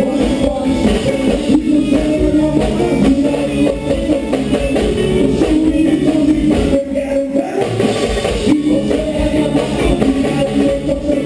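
Live band playing amplified music, with guitar and drums and a voice singing.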